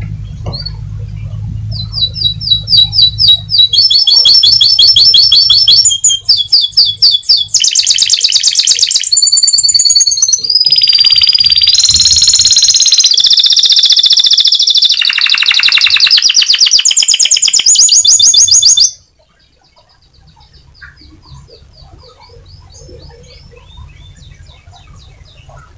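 Canary singing a long, loud song of fast trills and rolls that change phrase every second or two, ending abruptly about two-thirds of the way through; faint soft twittering follows.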